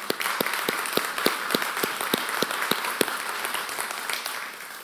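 Audience applauding, with one person's louder claps close to the microphone standing out at about three a second. The applause dies away near the end.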